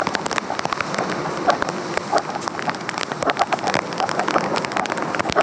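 Rain falling steadily, with a dense, irregular stream of sharp drop hits close to the microphone.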